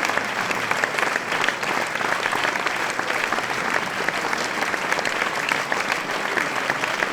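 A large crowd applauding steadily: a dense wash of many hands clapping at once.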